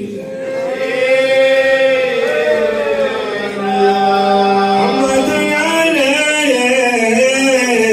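A man chanting a melismatic Mawlid praise song into a microphone, his voice bending and ornamenting long notes over a steady held drone note.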